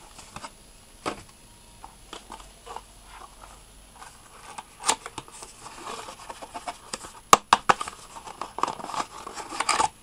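Cardboard box parts and paper leaflets being handled: rustling, scraping and light taps. These grow busier in the second half, with a few sharp clicks about seven and a half seconds in and a flurry of rustling near the end.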